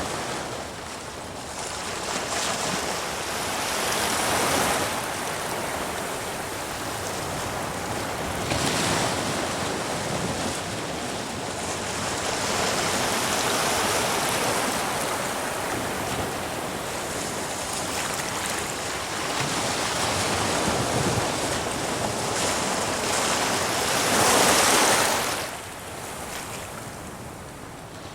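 Sea waves breaking and washing against rocks, in repeated surges with hissing foam between them; the loudest wave breaks near the end and falls away sharply.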